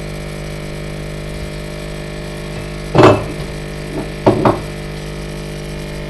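Steady electrical hum with a loud knock about three seconds in, followed by a double knock about a second later, as things are handled on a hard surface by the coffee machine.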